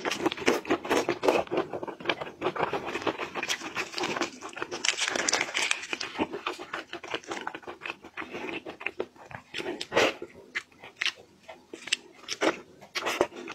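Close-miked eating of whole red shrimp: many short wet clicks of sucking and chewing, mixed with crackling as the shells are pulled apart and peeled.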